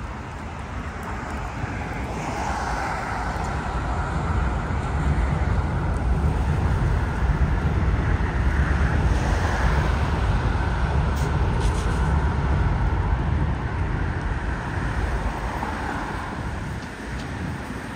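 Seoul Subway Line 2 electric train crossing a steel girder railway bridge overhead: a low rumble that builds over the first few seconds, peaks midway and fades near the end, over the steady hiss of road traffic.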